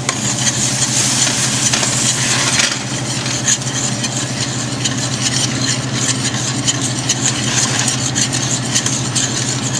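A butter, flour and milk roux sizzling in a stainless steel pot as it is stirred, the utensil scraping and clicking against the pot. The sizzle is strongest for the first couple of seconds, and quick clicks of the stirring run on after that over a steady low hum.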